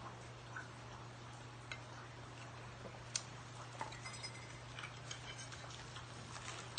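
Scattered light clicks and taps of forks and spoons against small plates as people eat, the sharpest a little past three seconds in and more frequent near the end, over a steady low hum.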